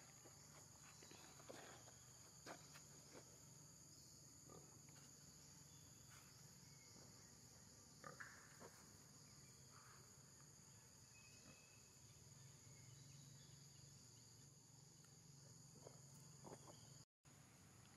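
Near silence: a faint, steady drone of insects, broken by a few soft clicks and rustles, the clearest about eight seconds in. The sound drops out completely for a moment near the end.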